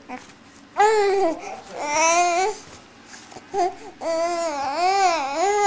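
Baby babbling and cooing in drawn-out, high-pitched vowel sounds: two about a second in and two seconds in, a short one, then a long wavering one near the end.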